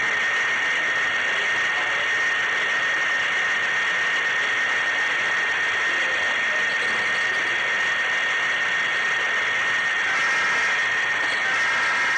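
HO scale model train's small electric motor and gearing whining steadily at a high pitch as it runs along the track. About ten seconds in, a second, lower whine joins it.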